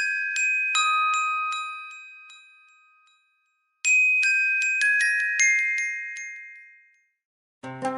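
HTC HD7 phone ringtone: a short phrase of high, glockenspiel-like struck notes that ring on and fade away, played again about four seconds in. A different ringtone starts near the end.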